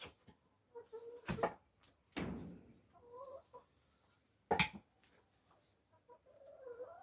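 Domestic hens clucking softly, with two sharp knocks, one about a second and a half in and one past the middle, and a short scrape between them.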